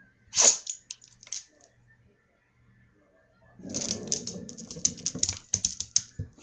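A dog's claws clicking and scrabbling on a hard floor as it pounces and scrambles. There is one sharp click about half a second in and a few lighter ones after it. From about three and a half seconds there is a fast, dense run of clicks.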